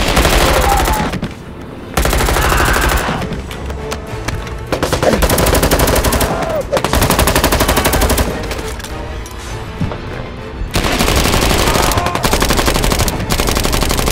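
Rapid automatic gunfire in several bursts of a few seconds each, over background music.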